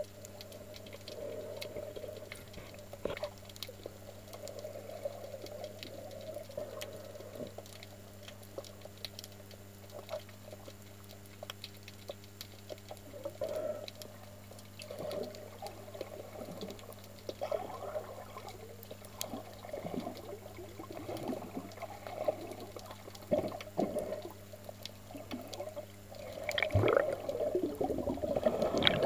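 Muffled underwater water sounds picked up by a camera held below the surface: irregular gurgling and sloshing over a steady low hum, louder near the end.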